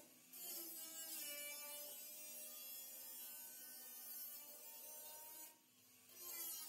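Corded angle grinder with a cut-off disc cutting into the steel bed side of a truck: a motor whine that wavers in pitch over a grinding hiss, with a brief drop-out about five and a half seconds in.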